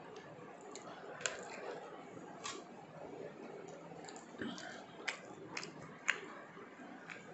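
A hand mixing cooked rice and curry on a steel plate: soft squishing of the rice, with about five sharp clicks of fingers against the metal plate.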